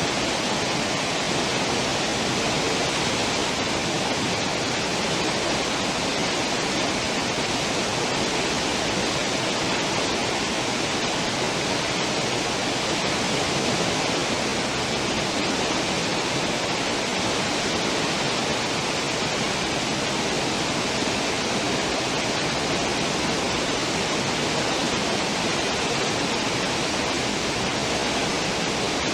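Steady, even rushing of a cruise ship's churning stern wake, foaming water with no breaks or separate splashes.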